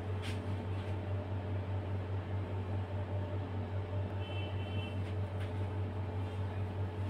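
A steady low mechanical hum with a fainter steady tone above it and a light hiss, broken only by a couple of faint clicks.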